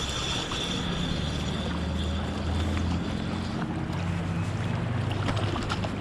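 Running creek water with wind buffeting the microphone in a steady low rumble.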